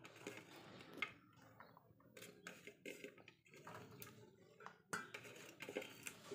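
Faint, scattered light clicks and taps of chopped onion and a metal spoon against a stainless-steel mixing bowl, a second or so apart, over near silence.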